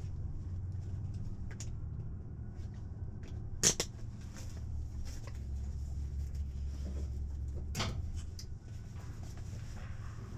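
Steady low hum of cockpit noise picked up through the aircraft intercom, with two sharp clicks, one about four seconds in and one about eight seconds in, and a few fainter handling ticks.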